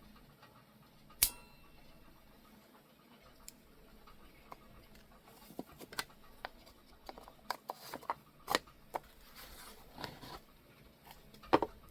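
Small metal lighters being handled: one sharp click about a second in, then a scattered run of small clicks and taps over faint room tone.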